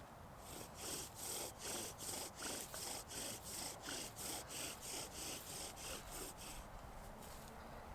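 Wood being worked by hand in quick, even scraping strokes, about three a second, stopping shortly before the end.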